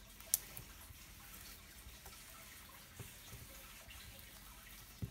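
Slime being pressed and pulled by fingers on a tabletop: faint small crackles and clicks, with one sharp click shortly after the start and soft knocks around the middle and just before the end.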